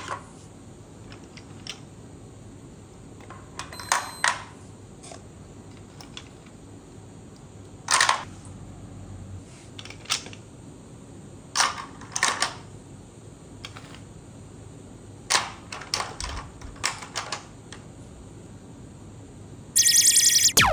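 Hard plastic linking cubes clacking as they are picked up, knocked together and dropped into a toy tractor's plastic trailer: a scattered run of clicks and knocks, some in quick pairs. Near the end a short, loud, bright shimmering sound effect plays.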